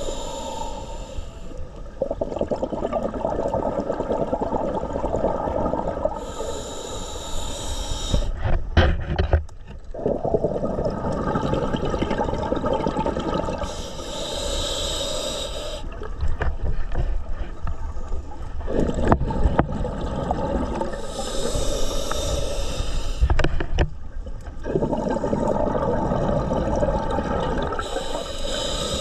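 Scuba diver breathing through a regulator underwater. A hissing inhale of about two seconds comes roughly every seven seconds, and each is followed by a long rush of exhaled bubbles.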